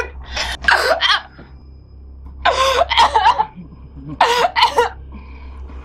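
A woman choking and crying out while being strangled: strained, wordless cries and gasps in three bursts.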